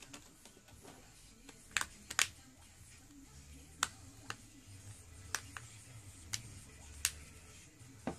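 Plastic back cover of a Samsung Galaxy Note II being pressed onto the phone, its clips snapping into place in about nine sharp clicks at irregular intervals.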